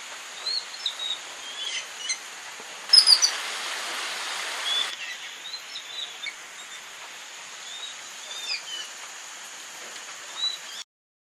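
Small birds chirping: short, high chirps and quick rising and falling calls scattered over a steady background hiss, loudest and busiest about three to five seconds in. The sound cuts off abruptly just before the end.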